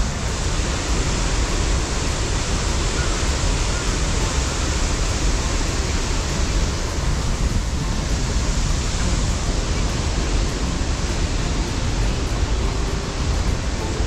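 Waterfall and river rapids pouring over rocks: a loud, steady rush of water.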